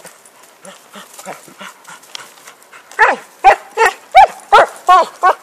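Cocker spaniel at a wooden log: faint gnawing and scraping at first, then from about three seconds in a rapid run of loud, short, high barks, about three a second.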